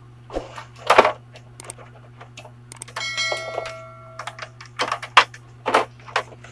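Scattered clicks and knocks of a CRT television's circuit board and wiring being handled and shifted, over a steady low hum. About three seconds in, a bell-like chime of a subscribe-button notification sound effect rings for about a second.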